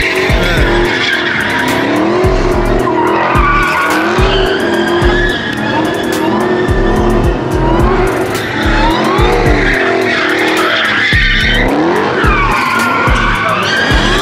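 Cars doing burnouts: engines revving up and down over and over with tire squeal, mixed with background music that has a steady beat.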